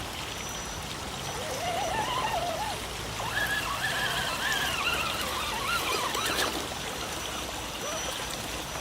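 Running, trickling water, with a whine that rises and falls in pitch through the middle few seconds, cutting off at about six and a half seconds. This fits the electric motor and gears of an RC crawler jeep being driven through water.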